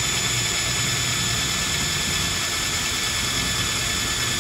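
Handheld power drill running steadily with a small bit, drilling out a rivet that holds a strap tab on a fencing mask.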